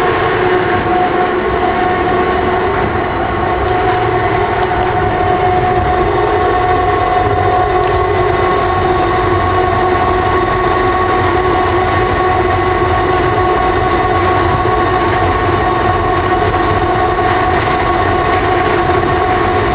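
Inside a rubber-tyred Uijeongbu LRT (VAL 208) car running at steady speed: an even rumble of the running gear on the guideway, with a steady electric whine over it.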